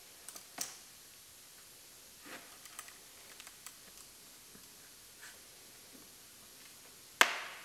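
Brittle, sun-baked dash pad crackling as it is pressed down onto fresh urethane: scattered faint clicks and crackles, then a sharper crack about seven seconds in. The vinyl is cracking because it has gone brittle with age.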